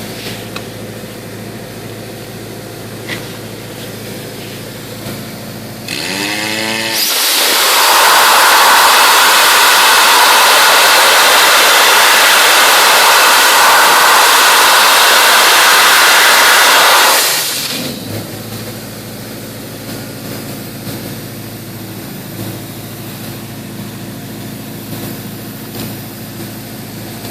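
Dry ice blaster: a steady machine hum, then about six seconds in a short rising whine as the nozzle opens into a loud, steady hiss of compressed air carrying crushed dry ice. The hiss lasts about ten seconds, then cuts off back to the hum.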